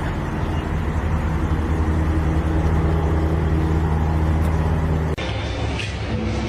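A steady motor drone with low hum and hiss, like a vehicle running. It changes abruptly to a slightly quieter steady noise about five seconds in.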